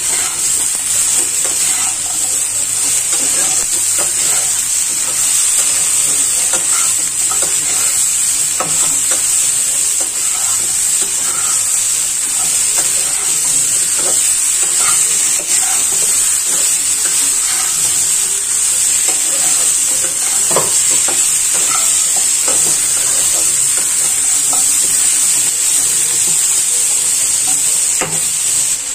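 Chopped vegetables (bitter gourd, carrot, green beans, eggplant and papaya) frying in oil in a non-stick kadai, with a steady sizzle. A spatula stirs and scrapes them against the pan in short, irregular strokes.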